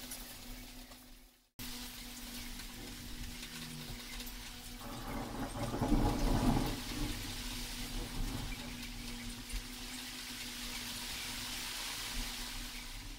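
Hands handling a bicycle front wheel as it is fitted into a suspension fork: rubbing and light knocks of the tyre and fork, loudest about five to seven seconds in, over a steady hum and hiss.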